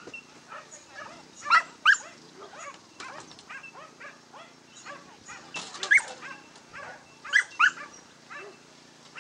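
Dogs yipping and barking excitedly in short, high-pitched yelps that come in clusters, loudest a couple of seconds in and again around the middle and near the end.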